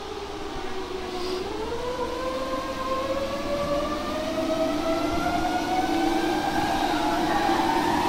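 Treadmill drive motor whining over a steady lower hum, its whine rising slowly and evenly in pitch and growing louder as the belt speeds up.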